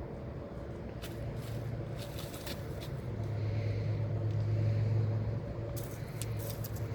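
A motor vehicle passing, its low engine hum swelling and then fading, with a few light clicks and scrapes.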